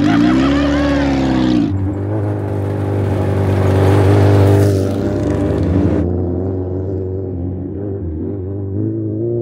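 Motorcycle engines on a dirt track: the Suzuki Hayabusa's inline-four revs up and back down in the first second or two. Then two bikes run past close by, loudest about four seconds in, and the sound turns duller and more muffled as they ride off.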